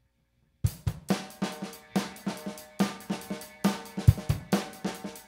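Drum kit playing a steady groove, starting about half a second in: snare hits with hi-hat and cymbals ringing above, and pairs of kick-drum hits near the start and again about four seconds in.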